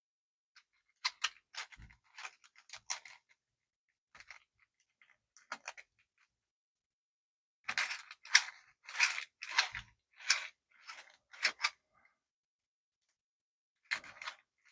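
Fully 3D-printed plastic Rubik's Cube being twisted by hand, its layers clicking and clattering in runs of quick turns, the longest from about eight to twelve seconds in. Its edge pieces are loose because part of each printed tongue is missing.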